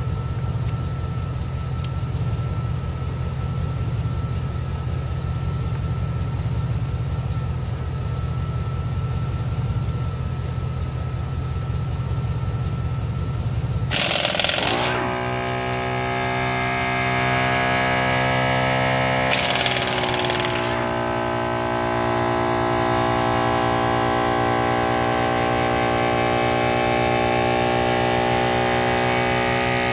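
Pneumatic impact wrench hammering lug nuts off a wheel in two short rattling bursts, one about halfway through and another about five seconds later. Under it a 12-volt air compressor runs steadily, changing to an even multi-tone hum after the first burst.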